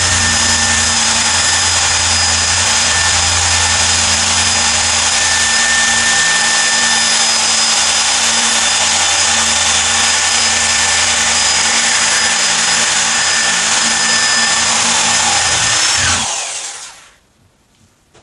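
Electric drill with a spade bit boring an eye hole through a pumpkin's rind, running at a steady full-speed whine, then released and winding down about sixteen seconds in.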